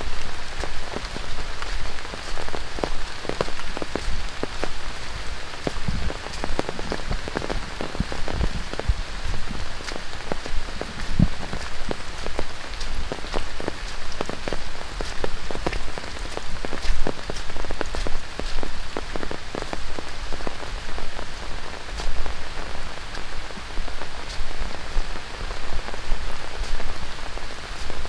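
Heavy tropical rain falling on dense rainforest foliage and the trail: a steady hiss dotted with many close, distinct drop impacts.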